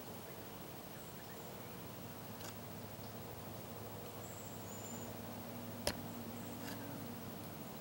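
Quiet woodland ambience over a low steady hum, with a few short, faint, high chirps about halfway through and one sharp click a little before six seconds in.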